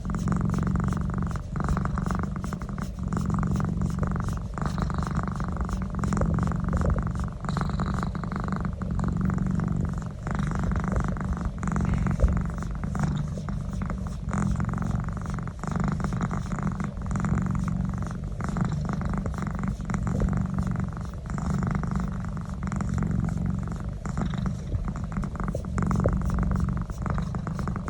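Domestic cat purring steadily while its neck is massaged, a low rumbling purr that swells and eases with each breath.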